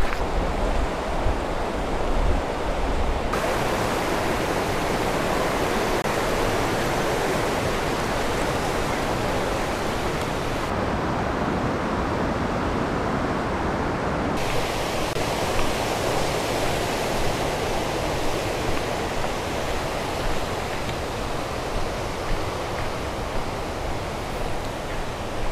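Steady rush of a mountain creek tumbling over rocks, its tone shifting suddenly a few times.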